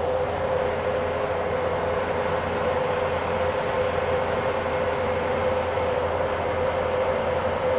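Steady road and engine noise inside the cabin of a vehicle travelling at speed on a highway: a constant rushing noise with an unchanging hum.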